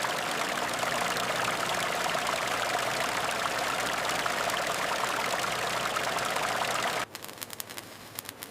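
Steady machine-like rushing noise with a faint hum running through it. It cuts off abruptly about seven seconds in, and quieter, irregular crackling clicks follow.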